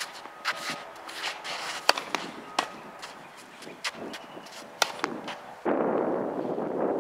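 Tennis balls struck by racquets and bouncing on a hard court during a rally: a string of sharp, irregular pops, some with a short ring. About five and a half seconds in, a steady rushing noise comes in abruptly.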